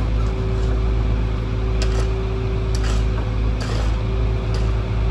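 A heavy vehicle's engine running at a steady speed, a low hum with a steady whine over it, with about four sharp clicks or knocks spread through it.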